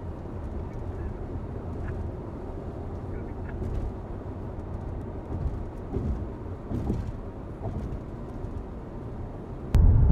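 Steady low road and engine rumble inside a moving car's cabin at highway speed. Near the end a sharp click comes, and the rumble becomes louder.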